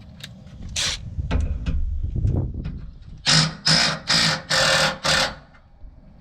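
Cordless impact wrench run in five quick bursts to loosen a rear shock mounting bolt, after one short burst about a second in.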